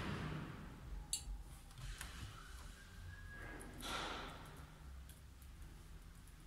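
Quiet, scattered key taps on a laptop keyboard, with a soft rustle about four seconds in.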